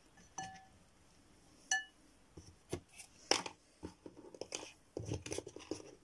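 Two light ringing clinks of a small cup against a glass mixing bowl, then a run of irregular knocks and taps as containers are handled and set down on a plastic tray.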